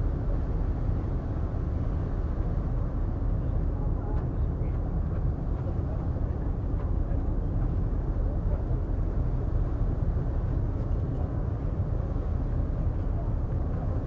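Steady low rumble and rush of a car ferry under way, heard from its open deck, with no separate events standing out.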